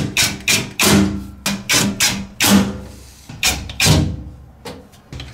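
A run of hard, irregularly spaced knocks, roughly three a second with a pause of about a second midway, each ringing briefly with a low tone.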